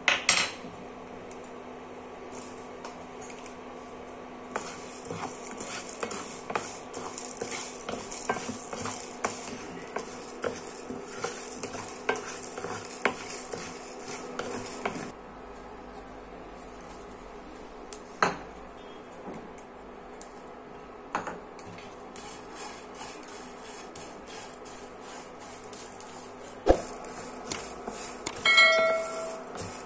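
A spatula stirring and scraping whole spices (peppercorns, cumin, coriander and fenugreek seeds, dried red chillies) in a non-stick pan, the seeds rattling and ticking against the pan with a light sizzle; in the second half the stirring is sparser, with fresh curry leaves and coriander stems added. Near the end a short chime from a subscribe-button animation.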